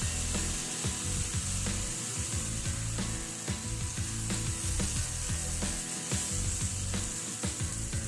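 Dosa batter sizzling on a hot tawa, with a steady run of quick, irregular scraping clicks, typical of a ladle spreading the batter on the pan.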